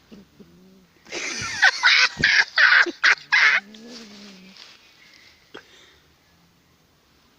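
A domestic cat hissing in a series of loud, sharp bursts for about three seconds, then giving a low drawn-out growl that rises and falls in pitch.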